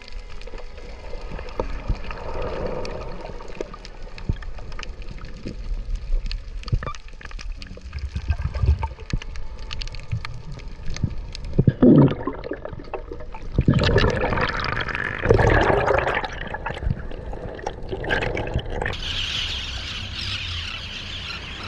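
Underwater sound on a submerged camera: water gurgling and bubbling, with scattered small clicks and pops, louder bubbling bursts about halfway through. Near the end a higher-pitched rushing hiss takes over.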